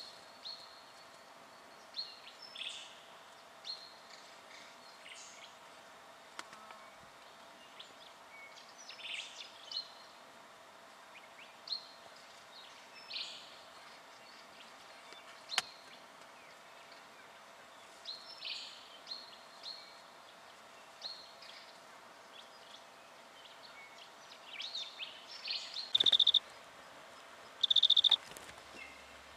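Outdoor ambience with scattered short, sharp high bird calls, a few a second at most. Over the last few seconds a loud, steady high note sounds three times, each about half a second long.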